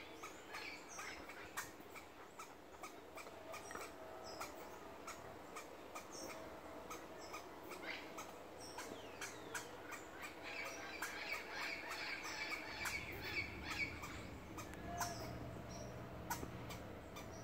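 Tree squirrel barking in alarm at a person in its tree: short, sharp barks repeated many times at an uneven pace.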